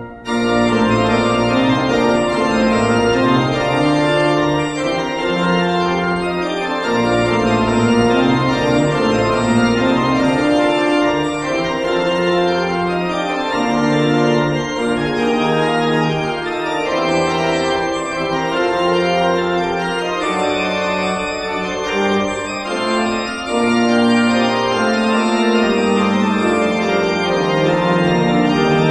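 Church organ playing sustained full chords over a moving bass line, with no break.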